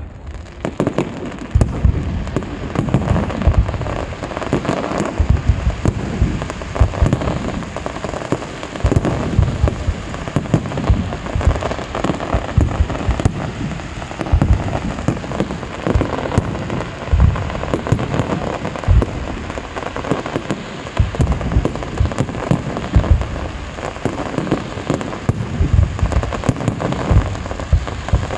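Large aerial fireworks display: a dense, continuous barrage of bangs from shells launching and bursting, overlapping and running together with no break.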